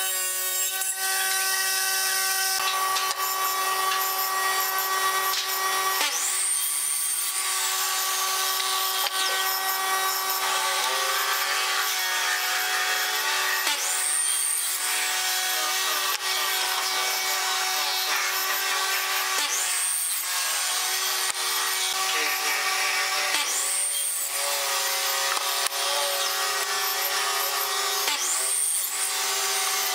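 A table saw cuts a board in the first couple of seconds. Then a miter saw chops through wooden pieces five times, each cut a brief surge over the steady motor whine.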